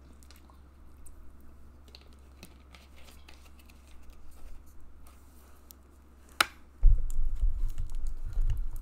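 Scattered light clicks and taps, then a sharper click about six seconds in. About seven seconds in, loud low thudding and rumbling begins: handling noise as the person shifts and picks up a plastic water bottle.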